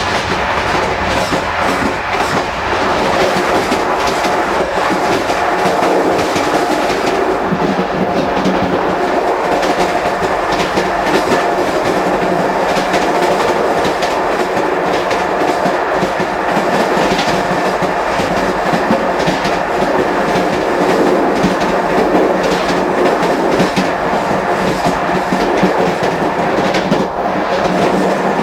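Moving Corail passenger train heard from the gangway between two coaches: a loud, steady rumble of wheels on the track, with frequent clicks and knocks running through it.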